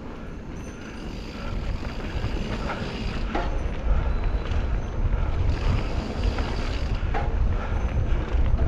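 Ride noise from a mountain bike descending a dirt singletrack: wind buffeting the rider-mounted camera microphone as a steady rumble, with tyres running over the dirt and small rattles and creaks from the bike. The rumble grows louder about a second and a half in as speed picks up.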